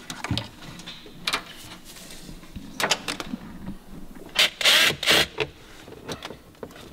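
Scattered clicks and rustles of hands handling wiring and plastic dash trim on a pickup, with a louder burst of rustling a little past the middle.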